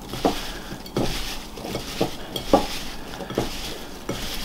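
Diced apple pieces coated in egg yolk, sugar and cinnamon being tossed and squished by hand in a bowl: a wet rustle with irregular soft knocks of the chunks against the bowl.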